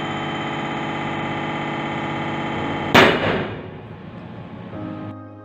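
Universal testing machine humming steadily under load, then about three seconds in a single loud bang as the 16 mm steel test bar snaps in tension, a ductile cup-and-cone fracture after necking, with a short ringing decay.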